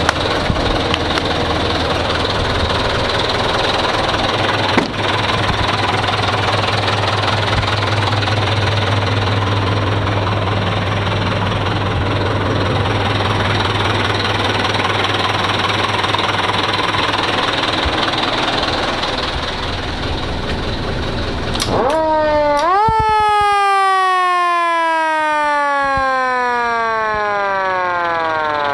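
Mitsubishi Fuso Canter fire truck's engine running with a steady hum. About 22 seconds in, its roof-mounted motor siren spins up in a quick rising wail, then winds down in a long, slowly falling tone.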